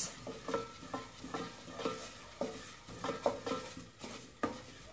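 Wooden spoon stirring spices through hot oil in a stainless steel pot, scraping and knocking against the pan in irregular strokes, with a faint sizzle from the oil still hot though off the heat.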